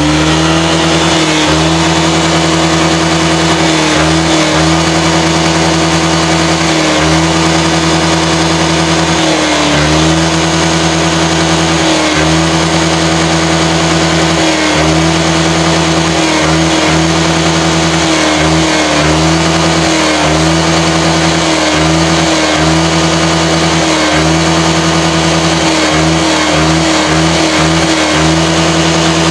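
Motor scooter engine revved through its muffler and held at high revs. The throttle is eased off for a moment and reopened again and again, in quicker succession near the end. The scooter's clogged catalytic converter has been cut open and gutted.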